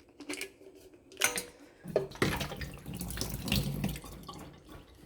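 A kitchen tap runs into a sink for about two seconds, after a few clicks and knocks of handling.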